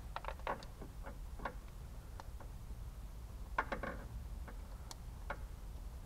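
Light clicking and rattling of plastic wiring connectors being handled and pushed together, an HID bulb's plugs being joined to the ballast leads. Several clicks come in the first second or so and a quick cluster about three and a half seconds in.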